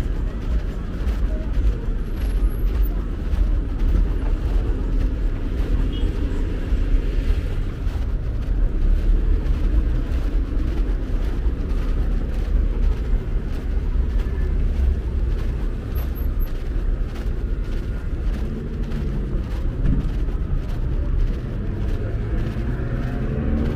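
City street ambience: a steady low rumble of car traffic, with faint voices of passers-by now and then.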